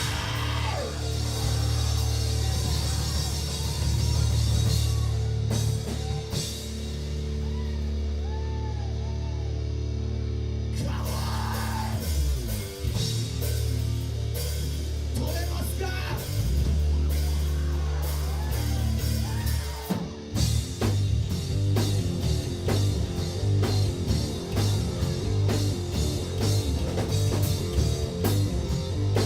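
Live rock band with distorted electric guitars, bass and drum kit playing a heavy rock song: long held low chords over cymbals and drums at first, then about 20 s in a short break and a driving, chopped rhythm with busier drumming.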